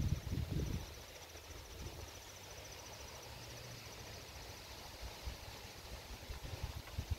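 Faint, steady high-pitched insect trill in rapid even pulses, such as a cricket or katydid in the grass. Wind buffets the microphone in the first second.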